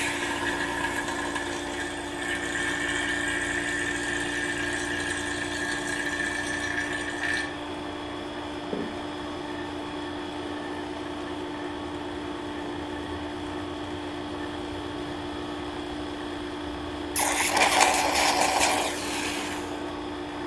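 Vacuum pump running with a steady hum as it draws oil through a hose into a refrigeration compressor's sump. Air hisses through the open hose for the first several seconds and stops about 7 seconds in. Near the end, as the cup of oil runs dry, air is sucked in with a louder slurping hiss for about two seconds.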